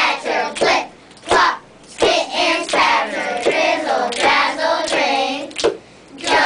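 A group of young children singing together in unison, with sharp hand claps falling in the short gaps between sung phrases.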